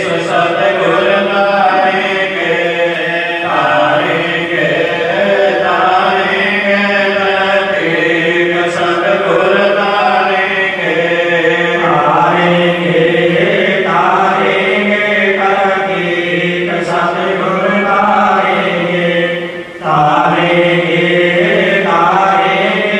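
Devotional aarti hymn being chanted in long held, melodic phrases, with a short break about twenty seconds in.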